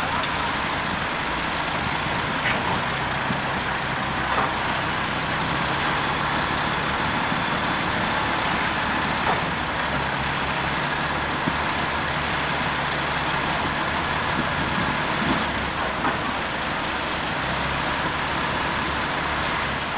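Ginaf all-wheel-drive truck's diesel engine running steadily under load as it creeps up a sand slope hauling a beach house, over a steady rushing noise. A faint high whine rises near the end.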